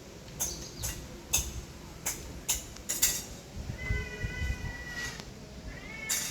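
Animal calls: a run of short, sharp, high calls, then one long, even call and a rising call near the end.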